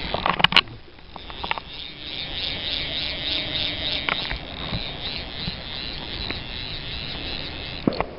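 Handling noise from a jacket sleeve rubbing and brushing against the camera, with two sharp clicks about half a second in and a few lighter knocks after, one more near the end, over a steady hiss.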